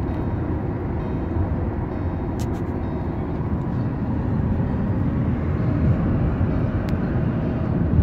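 Road and engine noise inside the cabin of a car moving at highway speed: a steady low rumble.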